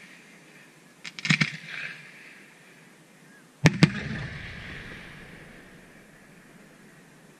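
Aerial firework shells: a quick cluster of cracks and pops about a second in, then two loud bangs in quick succession as two shells burst, their rumble echoing away over the next couple of seconds.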